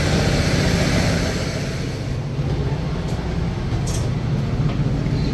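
The Korail Sea Train railcar standing at the platform with its engine running: a steady low hum under a hiss. The hiss drops away about two seconds in as the sound is heard from inside the car's doorway, and a few light clicks come near the end.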